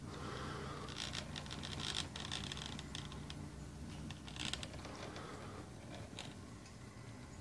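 Model of the SNCF 232 U 1 streamlined steam locomotive running slowly along the track. Its electric motor hums steadily under scattered clicks and scratchy hissing from the wheels and mechanism on the rails.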